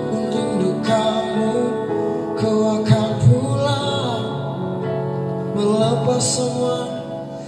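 Live music through a PA speaker: a woman singing a slow song into a microphone over guitar accompaniment.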